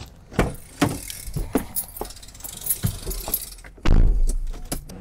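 A Mercedes van's driver door is unlatched and opened, with clicks and rattles of the handle and latch as the driver climbs in. About four seconds in, the door is pulled shut with one loud thump.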